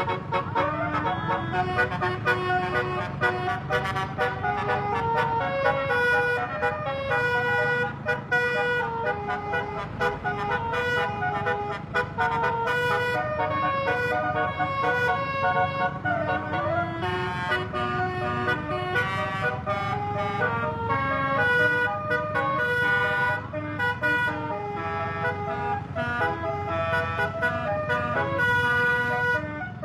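Basuri 'telolet' musical vehicle horn playing a long melody of held notes that step up and down, over a steady low hum.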